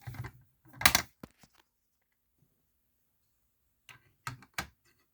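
Handling clicks and knocks: a cluster of small clicks with one sharp knock about a second in, a pause, then three more clicks near the end.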